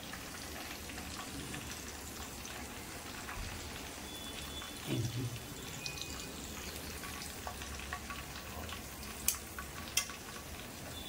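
Marinated chicken pieces frying in shallow oil in a kadhai, a steady soft sizzle, the pieces fried through. A couple of sharp clicks near the end.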